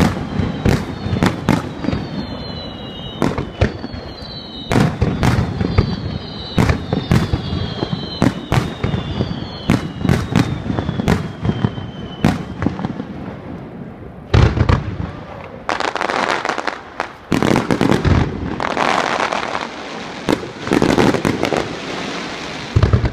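Aerial fireworks bursting in rapid succession, with several falling whistles over the first half. About two thirds in come heavier booms followed by long stretches of crackling.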